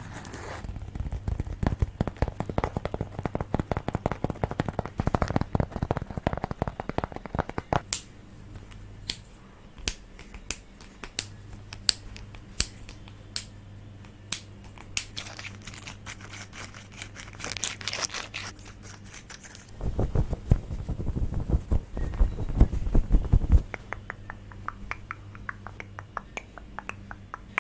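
ASMR tapping on objects. Fast runs of taps alternate with single sharp clicks, a short crinkly rustle about two-thirds through, and quick light ticks near the end, over a faint steady low hum.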